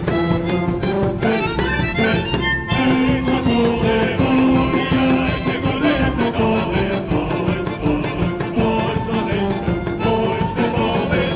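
Live folk band music: tuba, bass drum, guitar and accordion playing to a fast, steady beat, with male voices singing long held notes from about three seconds in.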